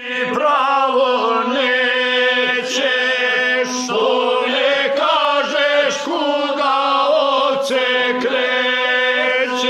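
Gusle, the single-string bowed folk fiddle, played in a wavering, nasal melody over a steady low note, with a man chanting an epic song along with it.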